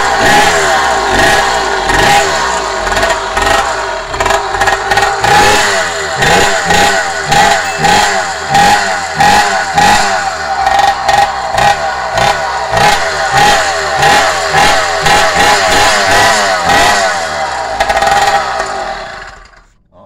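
Motorized bicycle's single-cylinder two-stroke kit engine running loud and being revved over and over, the pitch climbing and falling in quick repeated sweeps. It dies away near the end.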